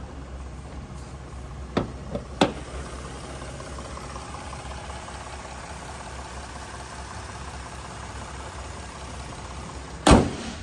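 Pickup truck hood unlatched and raised with a few sharp clicks and knocks about two seconds in, then slammed shut with one loud bang near the end. A steady low hum runs underneath.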